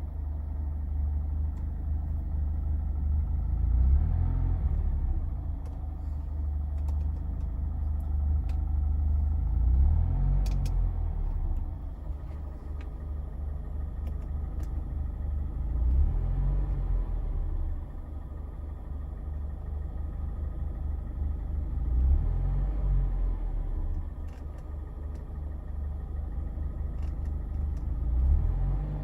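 2019 Mazda Miata ND2's four-cylinder engine idling roughly, its idle surging up and sagging back about every six seconds. The surging idle is part of a fault the owner links to limp mode and a misfire.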